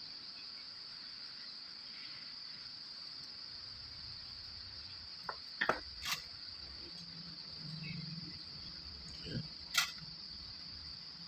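A steady high-pitched trill in the background, with a few brief clicks around the middle and two more near the end.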